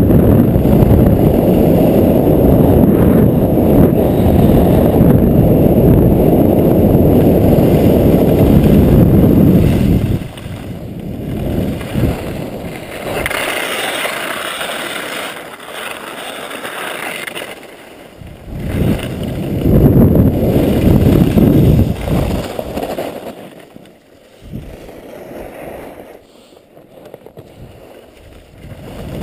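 Wind buffeting the action camera's microphone during a fast ski descent: a loud, steady rumble that drops away about ten seconds in. That leaves a hiss of skis scraping over packed snow, and the rumble comes back briefly about twenty seconds in.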